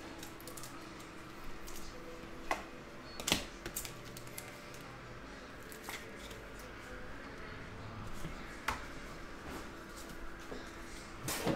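Trading cards and packs being handled at a desk: a few scattered light clicks and taps over a faint steady hum.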